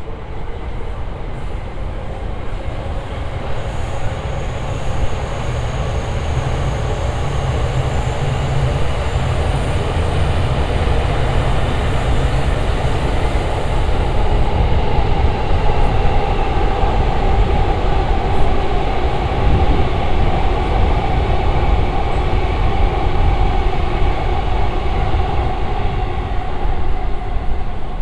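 Train running past, a loud, continuous deep rumble that builds over the first half and then holds.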